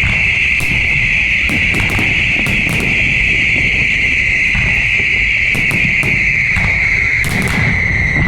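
Fireworks display: sharp bangs and crackles of bursting shells over a low rumble, with a loud, steady high hiss that sinks a little in pitch near the end.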